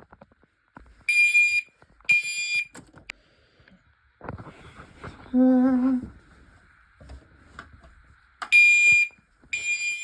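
Fire alarm beeping in half-second high-pitched tones about a second apart: two near the start, a break of several seconds, then two more near the end.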